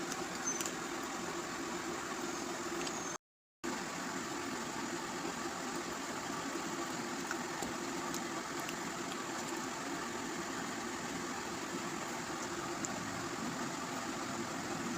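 Steady mechanical hum with an even hiss, cut off for a moment by a brief dropout about three seconds in.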